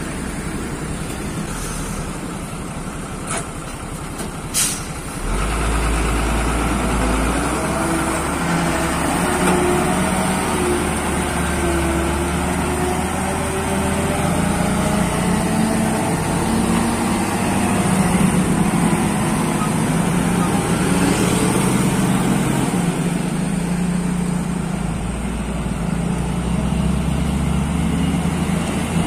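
Heavy diesel truck. Two short sharp sounds come about three and four-and-a-half seconds in, then the engine pulls away, its pitch rising and falling several times.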